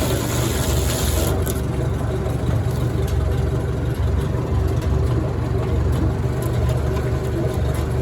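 Tractor engine running steadily with a low rumble. A brief hiss sits over it for about the first second and a half.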